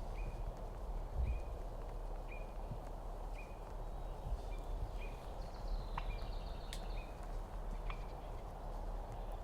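A bird calling outdoors: short, sharp high notes repeated about once a second, with a brief higher call about halfway through, over a steady background hiss and a few faint clicks.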